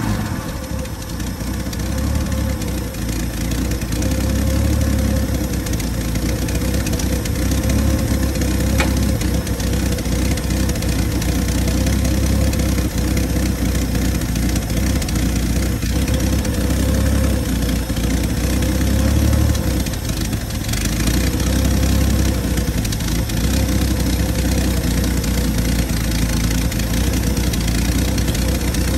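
1980 Ford 300 inline-six engine running at a fast idle on a makeshift fuel supply, its throttle wedged slightly open. The engine speed rises and eases a few times.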